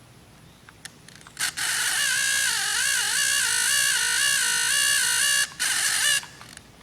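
Small electric motor and gears of a New Bright Velocity Extreme RC car whining loudly under load, its pitch wavering up and down as it strains to climb. It starts about a second and a half in, drops out briefly, picks up again and stops shortly before the end.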